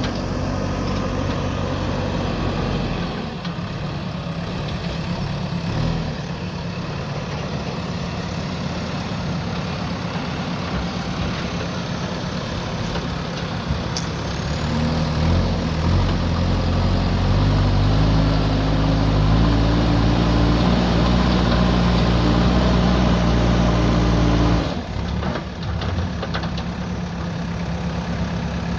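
JCB backhoe loader's diesel engine running steadily, then revving up about halfway through and holding the higher speed before dropping back abruptly a few seconds before the end.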